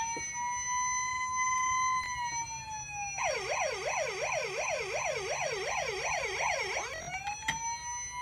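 Electronic siren of a Hess toy fire truck: a wail that rises and holds a steady pitch, slides down about two seconds in, then switches to a fast yelp of roughly three sweeps a second, and rises back into the steady wail about seven seconds in. A short click sounds near the end.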